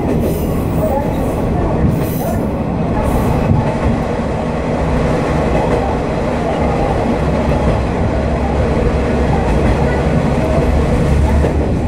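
Noto Railway NT200 diesel railcar running through a tunnel, heard from the front of the car: a steady rumble of the railcar and its wheels on the rails. A few sharp clicks come in the first few seconds.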